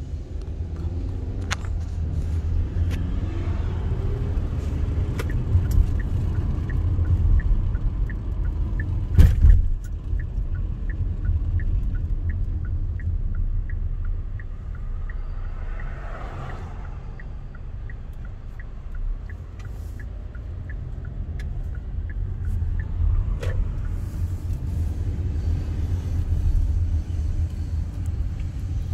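Inside a car's cabin while driving: a steady low rumble of engine and road noise, with one sharp thump about a third of the way in and a light, regular ticking of about three clicks a second for several seconds in the middle.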